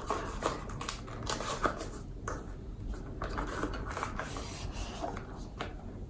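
A thin cardboard product box being opened and handled by hand: rustling and scraping of the card, with scattered small clicks and taps as the flaps are pulled apart.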